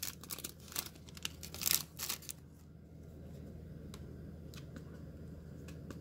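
Foil wrapper of a trading-card pack crinkling and tearing open for about the first two seconds, then only a low steady hum with a few faint ticks as the cards are handled.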